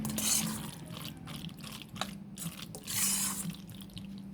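Wet, squelchy stirring of macaroni and cheese in a pot, with a few sharp utensil clicks, over a steady low hum.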